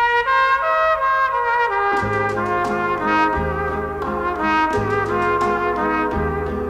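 Background music led by brass, with a trumpet-like melody that falls over the first couple of seconds, joined about two seconds in by a low bass line.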